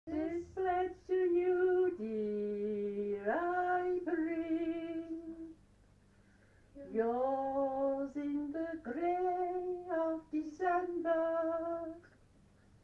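A woman singing a slow, unaccompanied song with a wavering vibrato: one sung phrase, a pause of about a second, then a second phrase.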